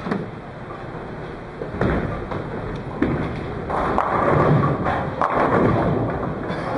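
Bowling alley sounds: sharp thuds of bowling balls, the rumble of balls rolling down wooden lanes, and a denser clatter of pins being struck in the middle of the clip.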